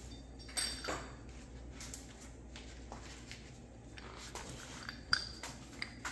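A few light metallic clinks with a brief ring, from hand tools or metal parts being handled, one soon after the start and another about five seconds in, over a faint steady low hum.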